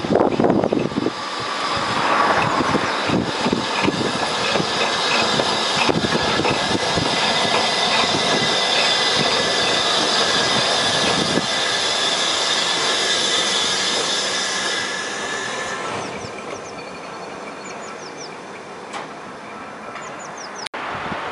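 LMS Stanier 8F 2-8-0 steam locomotive running light engine and passing close beneath: heavy exhaust beats at first, then the clatter of wheels and rods with steam hissing, fading away over the last few seconds.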